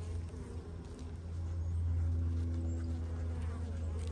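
Honeybees buzzing around an open hive, a steady hum that swells in the middle, over a constant low drone of background machinery.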